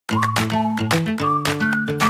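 Upbeat background music with a steady beat, bass notes and a simple melody, starting right at the opening.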